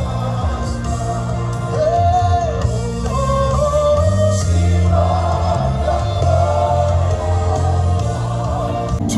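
Gospel worship music: voices singing together, a choir-like sound, over long held bass notes.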